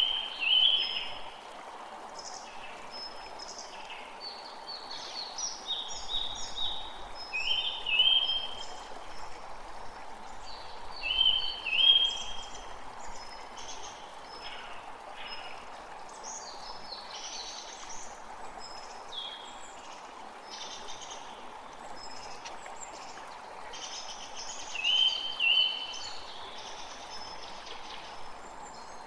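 Songbirds calling in short, repeated chirping phrases over the steady rush of flowing water from a stream. The loudest bird phrases come near the start, about a third of the way in, and again near the end.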